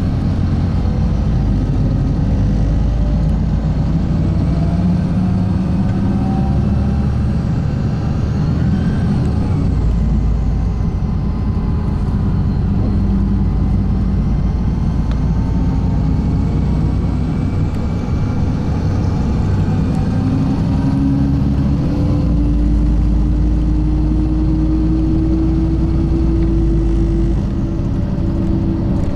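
LiAZ-5292 city bus running along, heard from on board: a steady engine and drivetrain rumble. About two-thirds of the way in a whine rises in pitch as the bus picks up speed.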